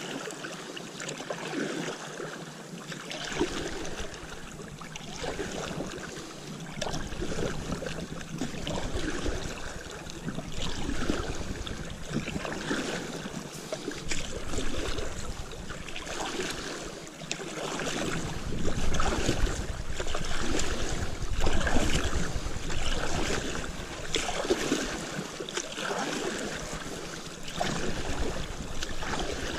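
Stand-up paddle strokes in calm river water, a swish and splash of the blade about once a second, with water running along the board. At times there is a low rumble of wind on the microphone.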